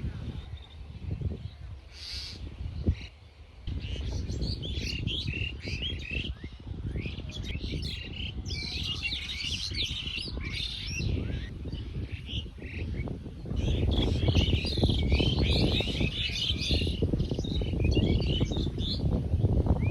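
Many small birds chirping together in a tree, a dense overlapping chatter of short calls. A steady low rumble runs underneath and gets louder about two-thirds of the way in.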